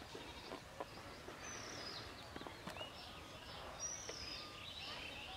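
Birds chirping outdoors, with two high falling calls about one and a half and four seconds in and other short chirps, over a faint steady background hiss. A few soft clicks of dry mud clods as hands dig at a hole in cracked earth.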